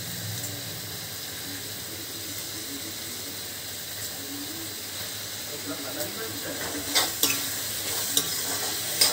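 Chopped vegetables sizzling steadily in oil in a metal kadhai. From about two-thirds of the way in, a slotted metal spoon starts stirring them, scraping and knocking against the pan a few times.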